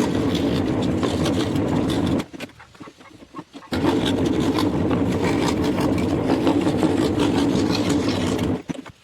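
Scroll saw running, its reciprocating blade cutting scrap wood. It stops about two seconds in, starts again about a second and a half later, and stops near the end.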